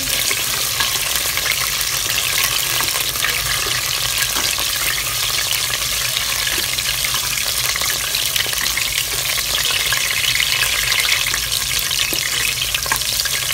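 Lemongrass stalks and turmeric leaf sizzling in hot oil in a pot, a steady dense crackle as they are stir-fried and stirred with a spatula.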